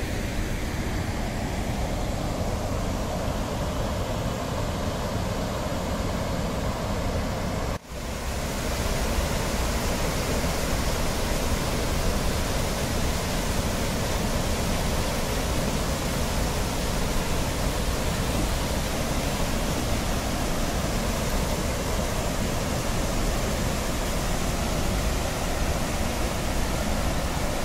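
Steady rush of floodwater pouring over a submerged concrete causeway on a river in spate. The sound breaks off for a moment about eight seconds in, then goes on a little louder.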